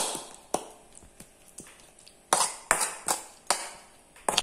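Steel spoon clinking and scraping against a metal kadai while stirring curd into a thick coconut mixture: a run of sharp, irregular clinks about every half second.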